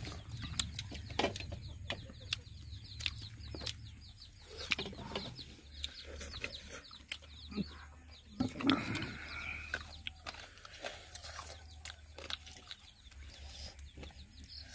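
Chickens clucking in the background, with many short high chirps and scattered clicks over a low steady rumble; a louder call stands out about nine seconds in.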